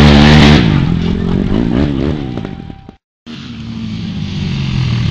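ATV engine at full throttle, then backing off and revving up and down as it fades away. After a short dropout about three seconds in, an ATV engine is heard running more quietly.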